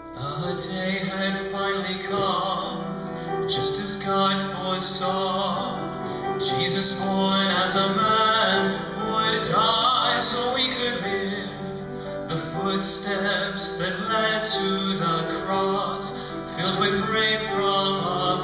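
A Christian song: a voice sings the lyrics over sustained instrumental accompaniment, the singing coming in at the start.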